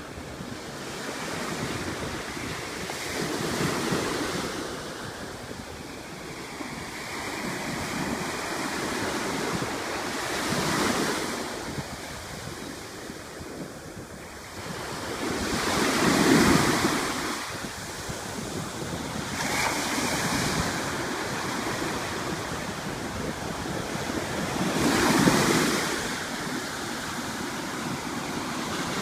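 Ocean waves breaking on a beach: a steady wash of surf that swells and fades every few seconds, with two larger breakers, one past the middle and one near the end.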